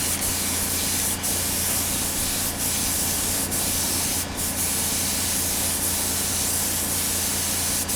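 Paint spraying green onto a motorcycle wheel: a steady hiss of the spray, with a low steady hum underneath and a few brief breaks in the hiss.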